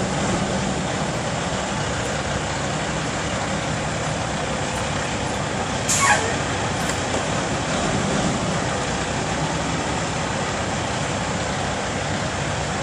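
Semi truck engine idling steadily amid traffic, with one short, sharp hiss that falls in pitch about six seconds in.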